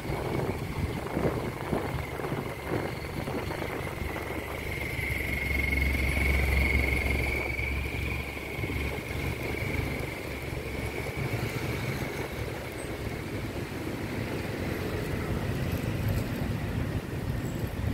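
Road traffic: the engines and tyres of cars and motorbikes going by, with one vehicle passing louder about a third of the way in, a low rumble and a steady high whine swelling together and fading again.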